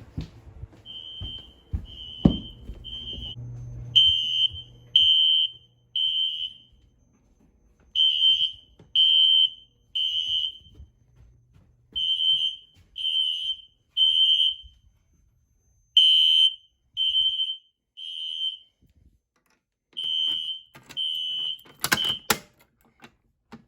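Two System Sensor SpectrAlert P1224MC fire alarm horns sounding in the code-3 (temporal) pattern: groups of three short high-pitched beeps with a longer pause between groups. A loud sharp knock comes near the end, and the horns stop.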